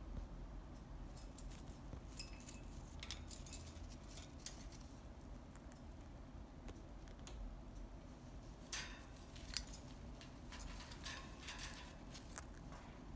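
Faint scattered clicks and scratches of small parrots' beaks and claws on metal cage bars and a chew toy, in two busy spells: from about one to four seconds in, and again from about nine to twelve seconds in.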